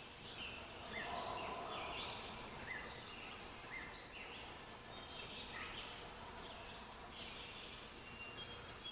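Songbirds chirping and whistling, many short overlapping notes, over a steady background hiss.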